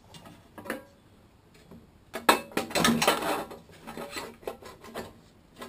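Metal parts of a Briggs & Stratton lawn mower engine clinking and clattering as the flywheel and recoil starter are handled. The sound is a few light clicks, then a louder run of sharp clattering knocks about two seconds in.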